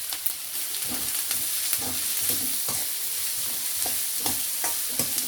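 Onions frying and sizzling in oil in a kadai, with a spatula scraping and stirring them every second or so.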